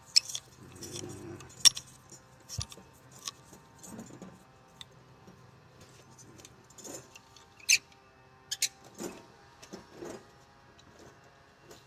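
Scattered light metallic clinks and taps from metal tools and steering parts being handled during tie-rod work, irregular and not rhythmic, the sharpest about two seconds in and near three quarters through.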